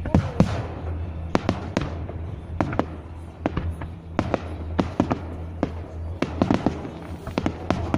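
Aerial fireworks bursting overhead: many sharp pops and cracks at irregular intervals, some in quick clusters, over a steady low rumble.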